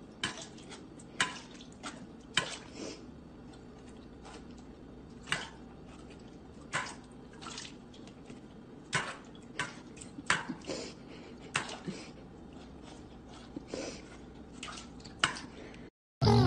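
Bernese mountain dog lapping water from a stainless steel bowl: irregular wet splashes and slurps, one or two a second.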